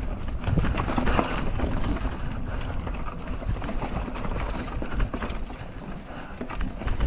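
Mountain bike rattling and knocking over a rough trail, with wind rumble on the microphone.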